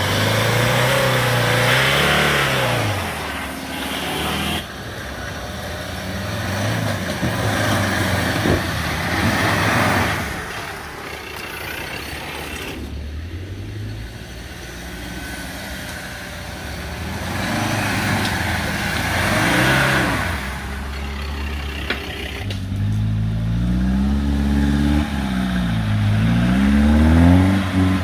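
Troller 4x4 engines revving up and down as the vehicles crawl over a rough dirt trail, the sound changing abruptly a few times as one vehicle gives way to the next. Near the end the revs rise and fall repeatedly and strongly.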